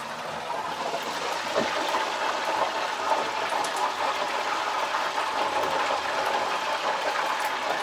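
Hand-cut potato fries frying in hot oil in an electric deep fryer: a steady, even sizzle.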